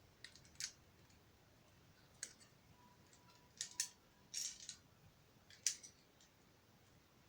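Lego plastic pieces clicking as they are handled and pressed together: about a dozen sharp, separate clicks, several in quick pairs.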